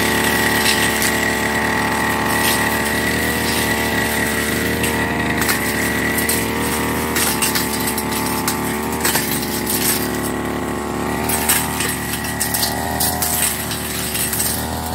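Backpack brush cutter's small engine running steadily at working speed, with a high whine over it. Scattered sharp ticks and cracks as the cutting head strikes dry grass and woody stems.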